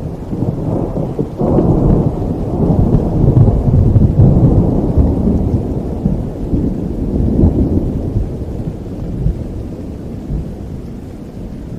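Steady rain with a long roll of thunder that breaks sharply about a second and a half in, swells, and slowly rumbles away.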